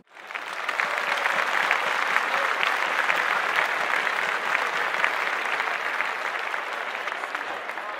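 Audience applauding at the end of a speech: dense clapping that starts at once and slowly eases off toward the end.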